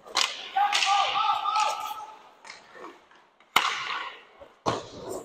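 Ice hockey play heard from the goal: skate blades scraping the ice and three sharp clacks of stick and puck, with a player's shout lasting about a second early on.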